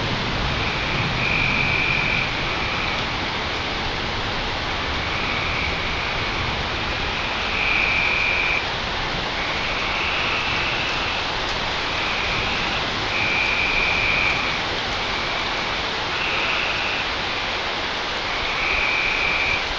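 Steady rain falling, with frogs giving short trilling calls about a second long every couple of seconds.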